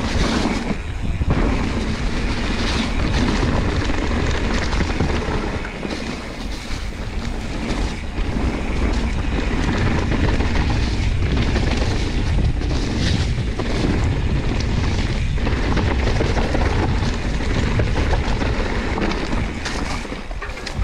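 Wind rushing over the handlebar camera's microphone as a mountain bike rolls quickly down a wet dirt trail, mixed with tyre rumble and rattles from bumps. It eases off briefly around six seconds in.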